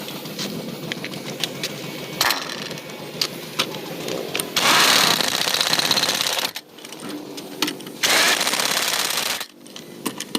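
Pneumatic air tool running in two bursts, the first about two seconds long and the second shorter, after a stretch of scattered metal knocks and clanks of tyre tools.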